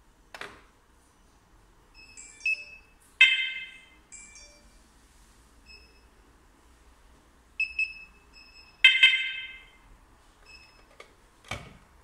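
Wireless alarm siren and its control panel giving short electronic beeps and two loud chirps, about 3 and 9 seconds in, each fading away, as the system is switched between arm and disarm modes from the phone app. Two knocks from the siren being handled, one near the start and one near the end.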